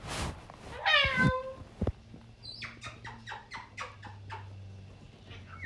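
A pet's short call, falling in pitch, about a second in, then a run of faint, quick clicks, about five a second.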